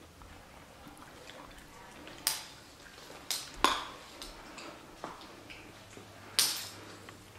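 A quiet room with four or so scattered light clicks and knocks.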